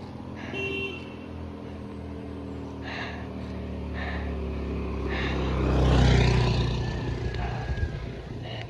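Small helicopter droning, its engine and rotor growing louder to a peak about six seconds in, then easing off a little.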